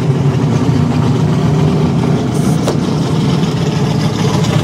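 Car engine idling steadily and loudly, with a faint click about two and a half seconds in.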